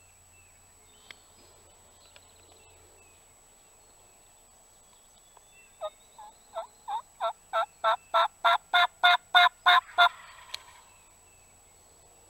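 A series of about fourteen turkey yelps, evenly spaced at about three a second and growing louder, starting about six seconds in.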